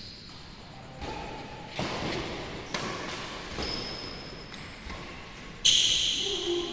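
Badminton rackets striking a shuttlecock in a rally, about one sharp hit a second, echoing in a large hall, with short high-pitched squeals, the loudest near the end.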